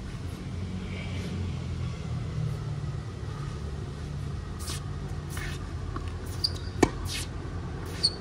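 Steady low rumble of city traffic, with a few sharp knocks in the second half, the loudest about seven seconds in.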